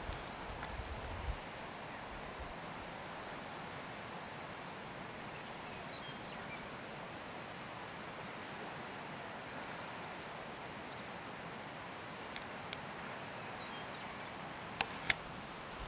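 Faint outdoor ambience: a steady quiet hiss with a regular high chirping through the first half. Wind buffets the microphone in the first second or so, and two sharp clicks come near the end.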